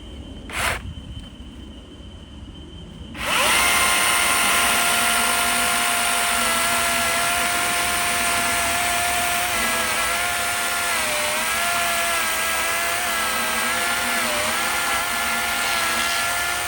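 DeWalt DCMCS574N 54V FLEXVOLT brushless cordless chainsaw starting abruptly about three seconds in and running at a steady high whine while cutting through a seasoned, dry log. Its pitch dips several times in the second half as the chain bogs in the wood. A single short click comes just before it starts.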